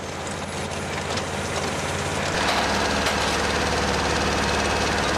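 Peat-cutting machine running, its engine and hydraulic cutting gear chugging in a fast, steady rhythm. It gets louder over the first two seconds, then holds steady.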